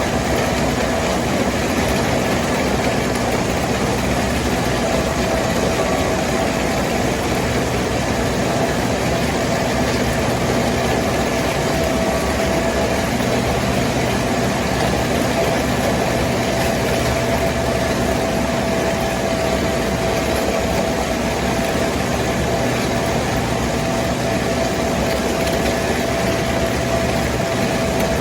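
Farm tractor engine running steadily, with a steady high whine over the engine.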